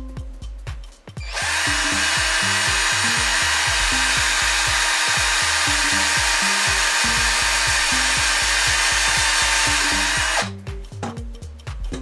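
Maxpuls cordless drill running at its fastest speed, spinning a 3D-printed crimper head pressed onto the end of a paper coin roll to crimp it shut. It starts about a second in, runs steadily for about nine seconds and stops near the end, over background music with a steady beat.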